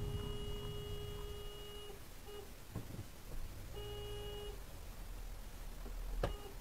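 Car horn honking at a truck turning across its path: a long steady blast of about two seconds, a quick tap, then a shorter blast, over low road rumble. A sharp knock near the end.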